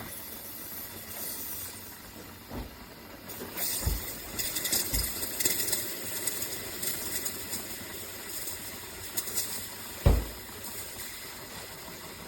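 Amazon Basics single-serve K-Cup coffee maker running, a steady hum with hissing that swells about four seconds in. A few low thumps come in, the loudest about ten seconds in.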